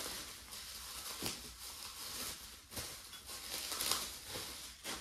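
Plastic bubble wrap crinkling and rustling in irregular crackles as it is pulled off a wrapped china teacup by hand.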